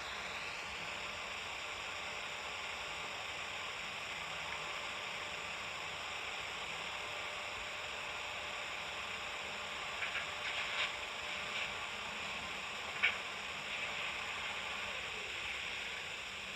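Vacuum cleaner running steadily, a constant hiss with a high whine, with a few short clacks about ten to thirteen seconds in.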